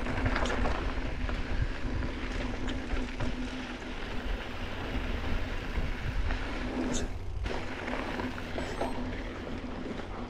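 Mountain bike riding fast down a dry dirt trail: tyres rumbling and crunching over the dirt, the bike rattling, and wind on the body-mounted camera's microphone. A steady low hum runs underneath and drops out briefly past the middle.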